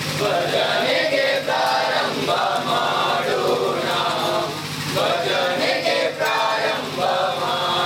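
A group of male voices, men and boys, singing a devotional chant together in chorus, phrase after phrase, with a steady low hum underneath.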